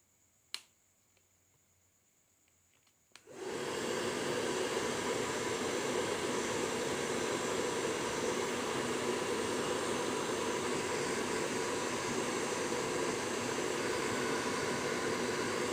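A sharp click about half a second in. From about three seconds in, an electric blower starts and runs with a steady rush of air, used to spray over the vape mod's parts.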